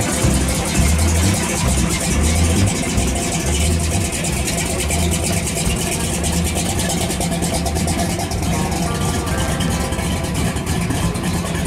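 Engine of a hot-rodded Chevy S-10 Blazer running through its side-exit exhaust, idling with an uneven, loping beat that is lumpier in the first few seconds and steadier after.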